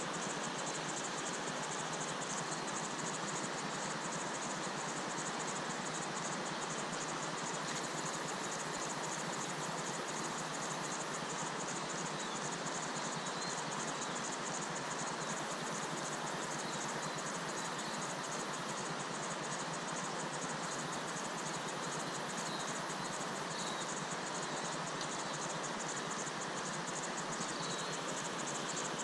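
Steady rush of flowing river water, with a high, fast-pulsing insect chorus over it.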